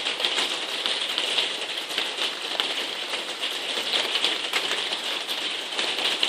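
Heavy rain drumming steadily on a conservatory roof, a dense patter of countless drops.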